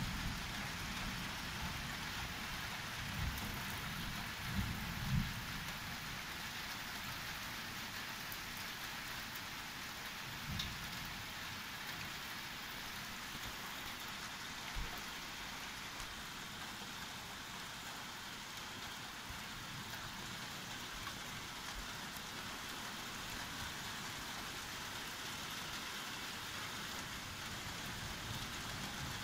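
Steady rain falling, an even hiss, with a few short low thuds in the first five seconds.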